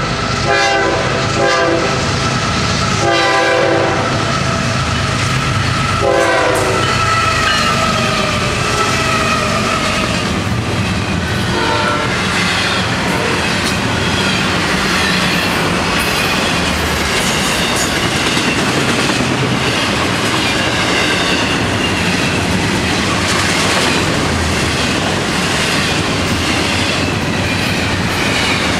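Florida East Coast diesel freight locomotives sound their horn in several blasts in the first seven seconds, then rumble past. The long freight train follows with a continuous clickety-clack of wheels over rail joints, and thin high squeals come and go.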